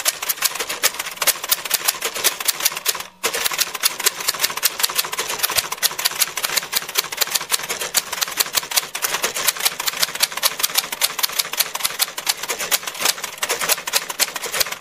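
Typewriter sound effect: rapid key clicks, many a second, typing out on-screen text, with one brief pause about three seconds in.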